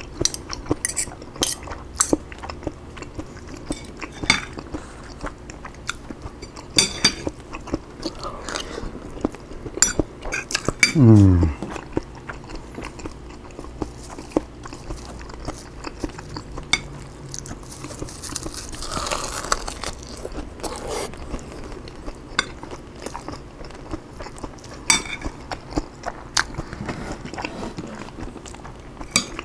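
Close-miked eating of broccoli fried rice: a utensil clicking against the dish and chewing, as scattered sharp clicks. About 11 seconds in there is a brief falling vocal sound of enjoyment.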